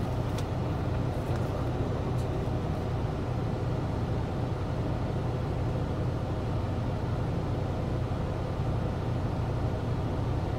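Semi-truck's diesel engine running steadily, heard inside the cab as a low, even drone.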